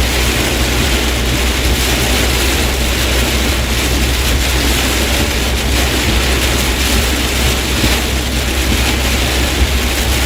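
Very heavy rain beating on a moving truck, heard from inside the cab: a steady, dense hiss over the low rumble of the truck and its tyres on the flooded road.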